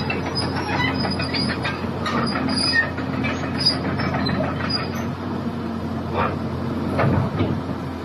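Caterpillar 330D crawler excavator's diesel engine running steadily, with short high metallic squeaks and a few clanks from the machine.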